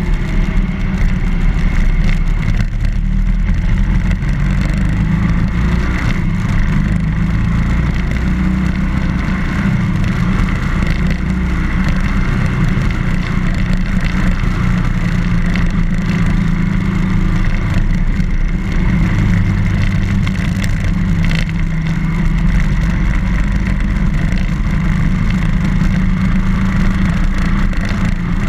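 BMW R1200GS motorcycle's flat-twin boxer engine running at a steady cruise, its drone shifting in pitch a few times as the revs change.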